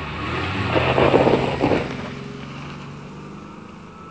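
Engine revving sound effect over a steady low hum. It swells to a peak about a second in, then fades away.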